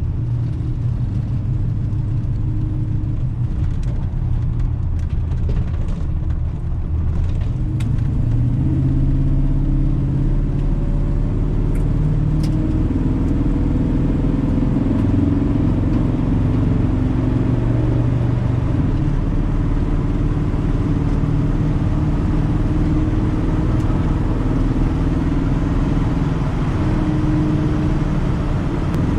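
GM Goodwrench crate 350 small-block V8 running in a truck, its engine note shifting up and down in pitch as the revs change, and growing louder about eight seconds in.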